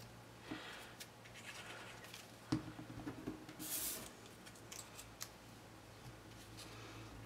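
Faint handling of cut cardstock paper pieces while gluing them together: light rustles and small clicks, with one sharper tap about two and a half seconds in and a brief sliding rustle about a second later.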